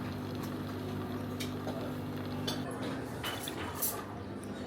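Cutlery and dishes clinking a few times, over a steady low hum that cuts off a little past halfway.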